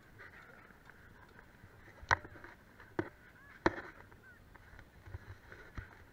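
Skis being handled and carried close to the camera, knocking and clattering: three sharp knocks, the loudest about two, three and three and a half seconds in, among lighter ticks.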